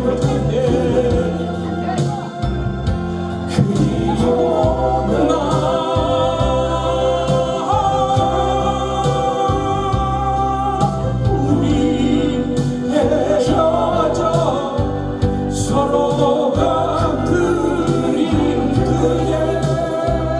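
A man singing a Korean ballad live into a handheld microphone, with instrumental accompaniment.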